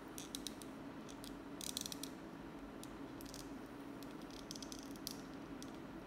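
Plastic action-figure head and parts handled by fingers, giving short clusters of small clicks and scrapes, the busiest a little under two seconds in and again near five seconds, over a steady low hum.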